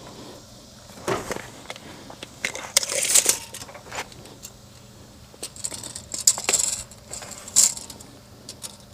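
Scattered metal clicks, clinks and short rattles from a homemade metal spreader bar being locked onto one of a tractor's three-point lower lift arms and a tape measure blade being pulled out against it.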